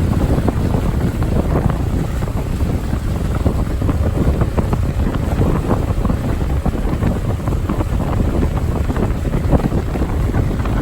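Wind buffeting the microphone aboard a motorboat under way: a loud, gusty rush heaviest in the low end, over the boat's running noise.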